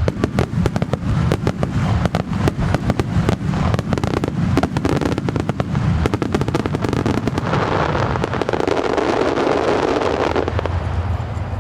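A starmine fireworks barrage: a rapid, dense volley of shell bursts and sharp cracks over low booming. About seven seconds in it gives way to a thick, steady crackling rush for a few seconds.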